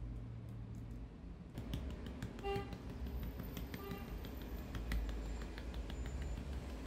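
Light clicks and taps of kitchen utensils and containers being handled, with two short ringing clinks, one about two and a half seconds in and one about four seconds in.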